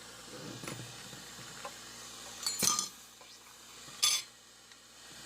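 Brass rifle cartridge cases clinking as they are handled, with a few light ticks and two louder sharp metallic clinks, about two and a half and four seconds in.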